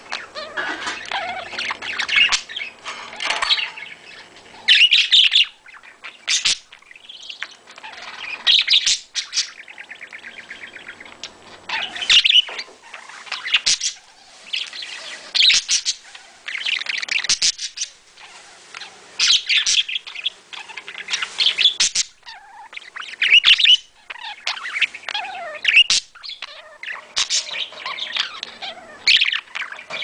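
Budgerigars chirping and warbling in busy bursts, with a few sharp clicks now and then.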